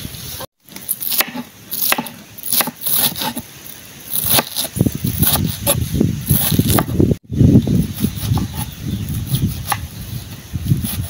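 A kitchen knife chopping leafy greens on a wooden cutting board: quick, uneven knocks of the blade meeting the board, joined from about four seconds in by heavier dull thuds.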